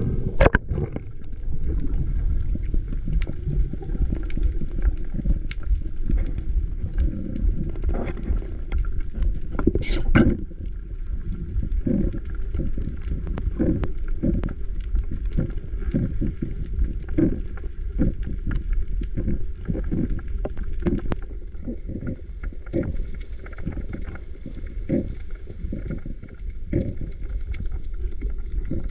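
Muffled underwater noise picked up through a camera housing as a freediver swims: a constant low rumble of moving water, with soft thumps coming about once a second through the second half.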